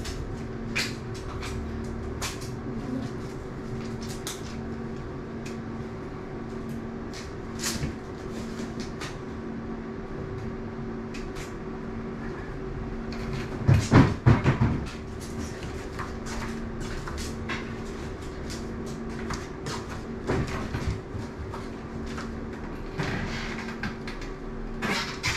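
Steady low two-tone hum with scattered light clicks and knocks, and a louder cluster of thumps and rustling about halfway through.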